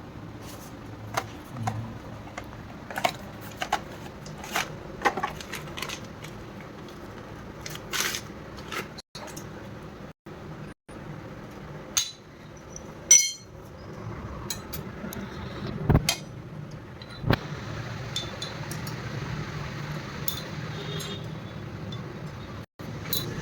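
Metal motorcycle engine parts and hand tools clinking and tapping as the engine is assembled: irregular sharp clicks and knocks, with one short ringing metallic clink about halfway through.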